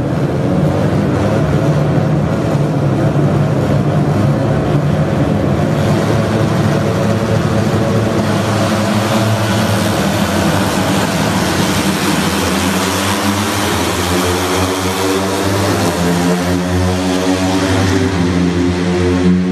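Racing motorcycle engines running together at high revs, a loud continuous drone. In the second half one steady, even-pitched engine note stands out.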